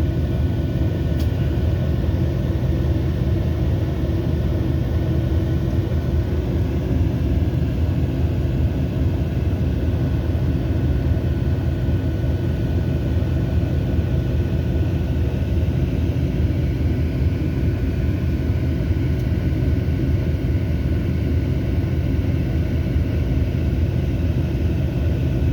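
ZCU-20 diesel locomotive running under way: a steady, unbroken low rumble with a faint constant whine above it.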